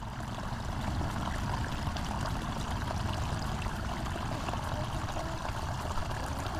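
Water pouring steadily in a thin sheet over the lip of a mud bank and splashing into the pool below.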